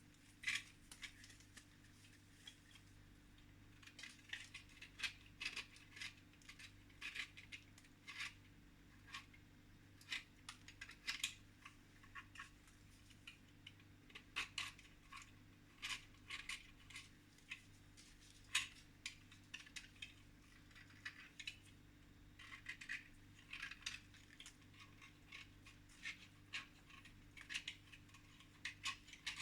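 Faint, irregular crisp clicks and light scratches, a few a second, of small objects being handled in close-up cleaning work, over a low steady hum.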